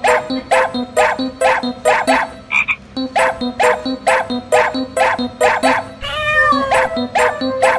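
A croaking sound repeating evenly about three times a second, with a short wavering cry about six seconds in.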